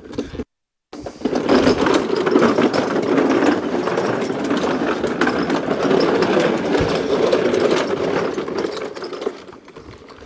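A machine running with a fast, dense rattle, starting abruptly about a second in and dropping away near the end.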